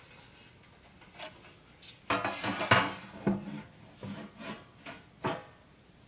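Scattered clicks and knocks with a louder scraping clatter about two to three seconds in: the plastic and sheet-metal case of a Dell OptiPlex GX620 desktop being handled as its side panel is unlatched and opened.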